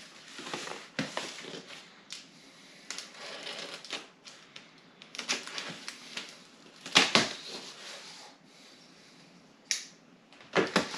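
Cardboard box being opened: a blade slitting the packing tape, then the flaps pulled open and handled, giving irregular scrapes, taps and cardboard rustling, loudest about seven seconds in.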